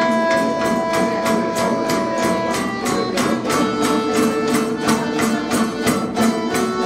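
A student ensemble of Kazakh dombras, two-stringed long-necked lutes, playing a fast folk tune in rapid, even strumming, with an accordion holding sustained notes for the first few seconds.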